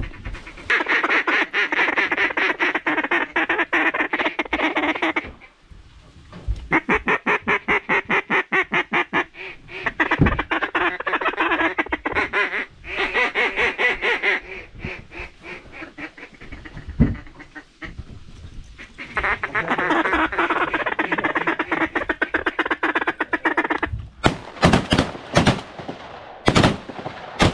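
Duck call blown in long runs of rapid mallard quacks to bring in a group of incoming ducks, three runs in all. Several sharp shotgun blasts go off in the last few seconds.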